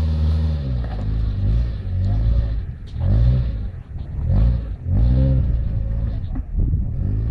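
Suzuki Jimny's engine revving in repeated surges under load as it crawls over rocks, rising and falling in pitch several times, with a few knocks in between.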